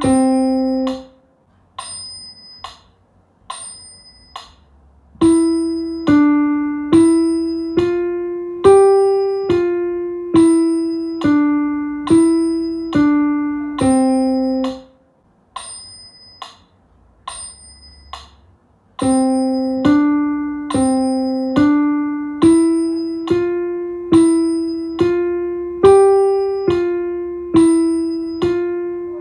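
Piano played one note at a time by the right hand in simple five-finger exercises, about two notes a second at a steady pace, each note fading after it is struck. A phrase closes on a held note about a second in, followed by a few soft notes; a second exercise ends on a held note near the middle, and after a few quiet seconds the next one starts.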